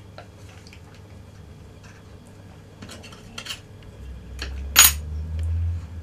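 Scattered small clicks and taps from hands handling a carbon rod blank and its metal guide while whipping thread onto the guide foot, with one sharp click a little before five seconds and a low rumble of handling around it.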